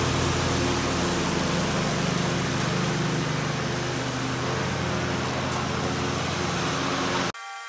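Riding zero-turn lawn mower engine running steadily while mowing grass. It cuts off abruptly near the end.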